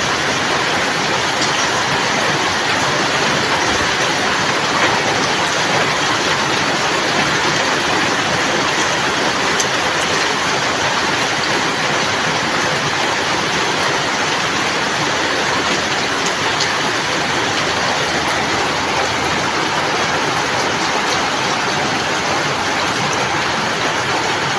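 Steady rain falling, an even unbroken hiss with a few faint scattered drop ticks.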